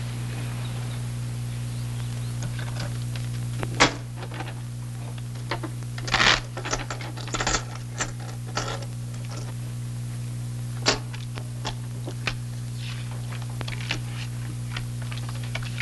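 Scattered sharp clicks and taps of a card game: playing cards dealt onto a table and poker chips, the loudest about four seconds in and a cluster a little later, over the steady low hum of an old film soundtrack.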